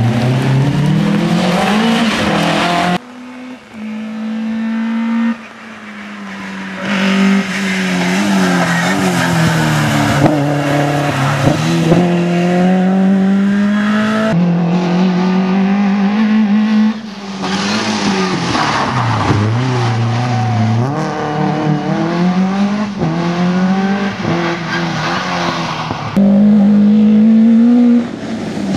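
Rally car engine driven hard on a special stage: the pitch climbs as it accelerates and drops on lift-offs and gear changes, again and again. Several passes are cut together, so the sound changes abruptly a few times.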